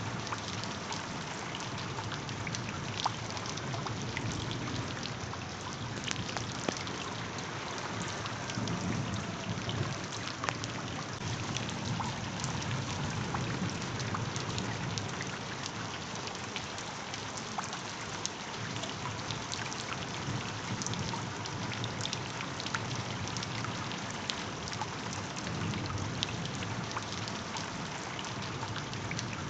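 Steady rain, with many single drops ticking sharply and a low rumble that swells and fades.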